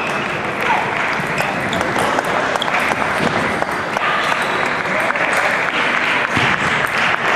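Busy table tennis hall: many table tennis balls clicking on tables and bats from matches all around, making a dense, overlapping patter, with a murmur of voices under it.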